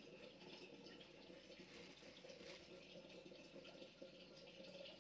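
Faint, steady trickle of water from a tap into a sink.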